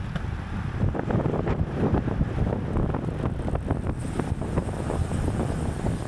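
Wind buffeting the microphone of a racing bicycle's onboard camera at speed: a steady low rumble, with scattered small clicks and knocks from the bike over the road.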